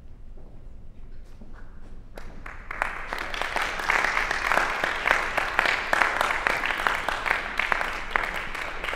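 Audience applauding: a few scattered claps about a second in, swelling to full, steady applause by about two seconds in.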